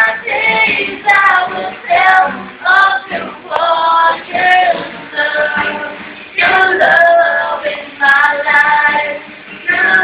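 A woman singing a song in phrases, accompanied by guitar.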